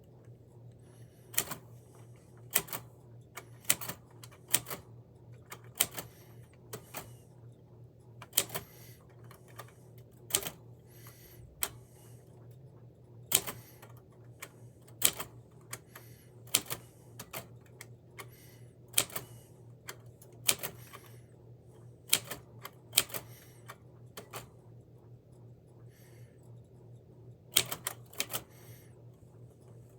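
Manual typewriter being typed on slowly: single key strikes, unevenly spaced at roughly one a second, some in quick pairs, with a short pause about three quarters of the way through. A steady low hum runs underneath.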